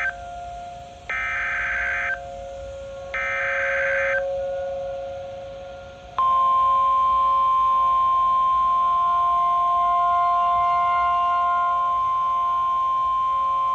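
NOAA Weather Radio Emergency Alert System broadcast: the tail of one SAME digital header burst, then two more short data bursts about a second long and a second apart, carrying the coded tornado-warning alert. About six seconds in, the steady single-pitch 1050 Hz warning alarm tone starts and holds, signalling that a warning message follows.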